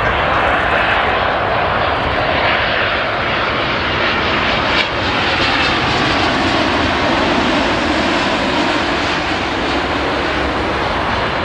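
Boeing 787-10 airliner's jet engines on landing approach, passing low and close: loud, steady jet noise with a whine that falls slowly in pitch as the aircraft goes by.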